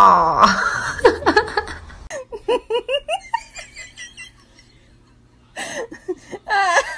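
A person laughing hard in runs of short rising-and-falling notes, starting with a loud outburst and breaking off briefly before a second run near the end.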